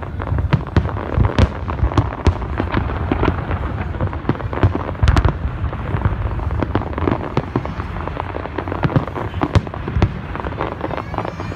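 Aerial firework shells bursting in a dense barrage: many sharp cracks and booms in quick succession over a continuous low rumble, the loudest boom about five seconds in.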